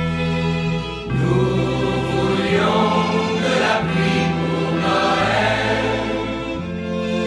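Pop song instrumental passage with a wordless choir of voices singing over held chords, the bass moving to a new note every second or two.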